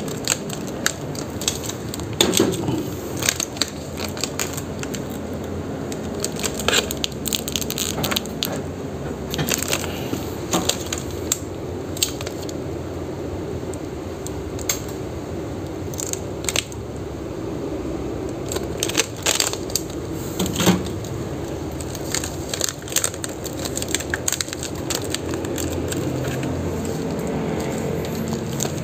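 Clear plastic packaging on small hand garden tools (a mini trowel and hand rakes) crinkling and crackling as they are handled, with scattered sharp clicks and taps, over a steady low background noise.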